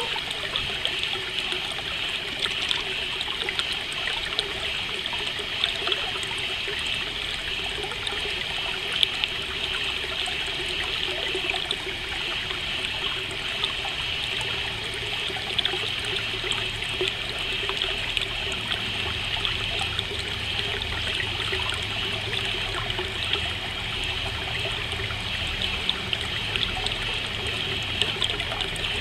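Water trickling steadily, like a small stream, in a continuous nature ambience.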